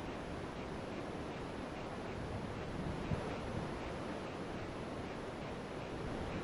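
Steady wind rushing over the camera microphone, with an uneven low rumble and a couple of faint knocks about three seconds in.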